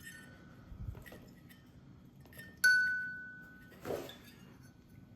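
A metal tool clinks against metal once, leaving a clear ringing tone that fades over about a second, with faint ticks of tool work before it and a short scrape after.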